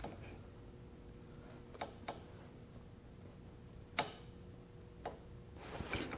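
A few sharp, separate metallic clicks from a torque wrench tightening a motorcycle's front brake-line banjo bolt to about 13 foot-pounds. The loudest click comes about four seconds in, with some handling noise near the end.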